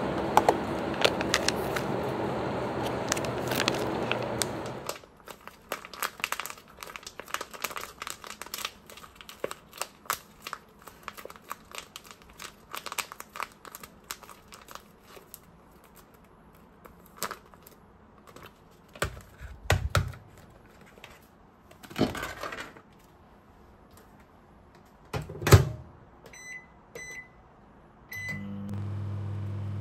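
Plastic food packaging crinkling and rustling, with clicks and a few louder knocks, after a steady noise cuts off about five seconds in. Near the end a microwave oven's keypad beeps three times and the oven starts running with a steady hum.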